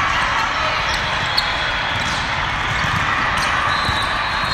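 Steady din of a big hall with several volleyball matches in play: a wash of voices with scattered ball hits, and one sharper smack of a ball about a second and a half in.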